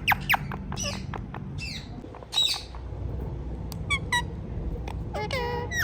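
Ringneck parrot squawking: a run of short, sharp calls, several dropping steeply in pitch, with a longer call near the end.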